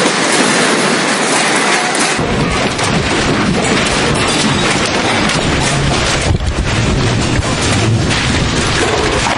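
Loud, continuous rattling and clattering of a building's fixtures and contents shaking in a strong earthquake. About two seconds in, a deep rumble joins it.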